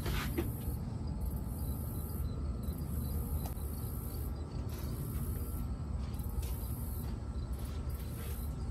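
Insects chirping in a very high-pitched, shrill trill that comes in repeated bursts of about a second each, with short gaps between them. A steady low rumble runs underneath.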